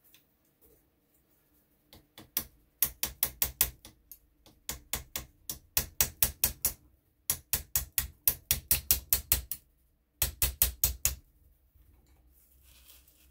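Small hammer tapping a steel pin punch to drive a pin out of an RWS 54 Air King air rifle's action. The taps are sharp and quick, about five or six a second, in several runs with short pauses, stopping about eleven seconds in.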